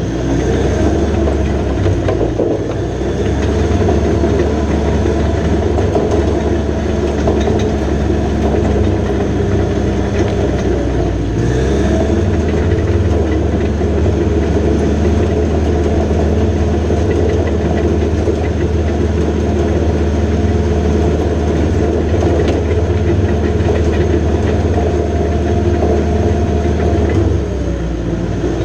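2015 John Deere 450J LT crawler dozer working: its diesel engine runs steadily under load, with the rattle of its tracks. The engine note shifts about eleven seconds in and again near the end.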